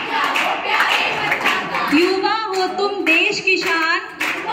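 A group of women singing together while clapping their hands in a steady rhythm.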